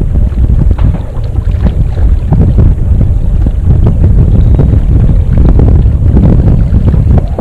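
Wind buffeting an action camera's microphone: a loud, constant low rumble with gusty flutter.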